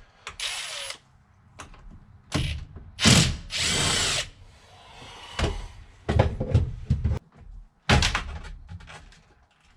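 Power driver with a Torx bit run in several short bursts, breaking loose and backing out tight steering-wheel Torx bolts, with clicks and knocks between the bursts.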